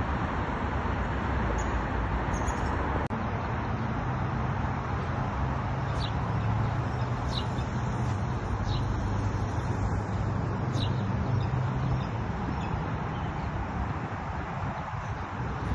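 Outdoor street ambience: steady traffic noise with a low engine hum that fades out after about twelve seconds, and a few short bird chirps in the middle.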